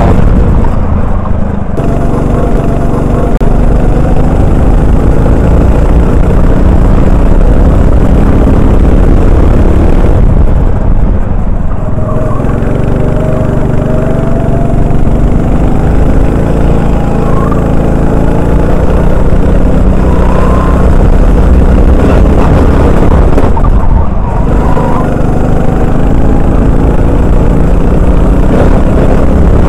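Honda 390 single-cylinder four-stroke kart engine at racing revs, heard from the driver's helmet. The revs drop three times as the driver lifts for corners: about a second in, around eleven seconds and around twenty-four seconds. After each drop the pitch climbs slowly as the kart accelerates again.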